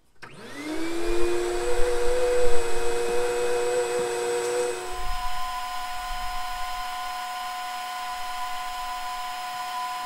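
Vacuum cleaner motor starting up, its whine rising in pitch and then settling into a steady whine as the hose nozzle sucks debris out of the camper's empty refrigerator compartment. About five seconds in, the pitch of the whine changes abruptly and then holds steady.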